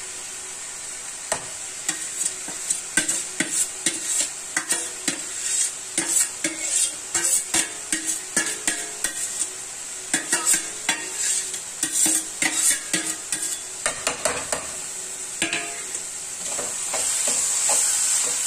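A steel spatula stirs and scrapes grated turnip in a metal kadhai, clinking against the pan many times over a steady sizzle of frying vegetables. The sizzle grows louder near the end.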